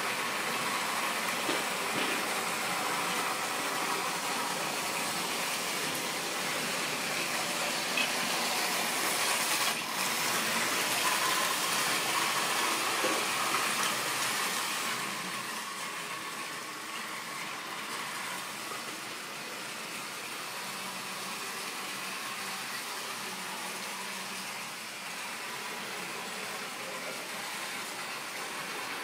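Model railway trains running on the track: a steady rolling rattle and motor whir from the wheels and rails, louder through the first half and settling lower about halfway through.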